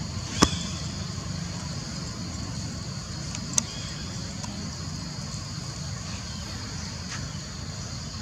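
Steady background rumble of distant road traffic with a steady high hiss over it, broken by two sharp clicks, about half a second in and about three and a half seconds in.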